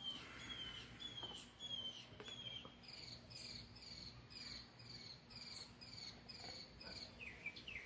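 Faint, regular chirping from a small animal: short high notes, each dropping slightly in pitch, about two a second. About three seconds in, the series steps up to a higher pitch and carries on at the same pace.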